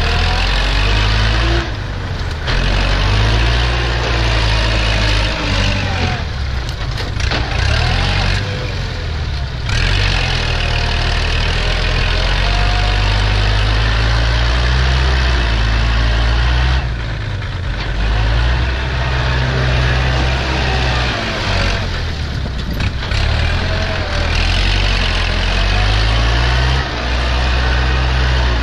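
Diesel engine of a Kubota farm tractor working hard close by under load, with a dump truck's engine running alongside. The sound is loud and steady and dips briefly about five times as the engine load changes.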